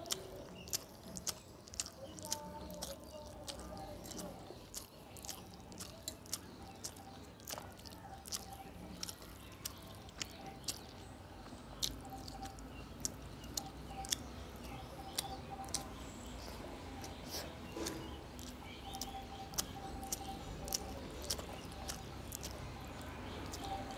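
Close-up chewing and wet mouth sounds of a person eating rice mixed with curry by hand, with frequent sharp lip-smacks and mouth clicks, several a second.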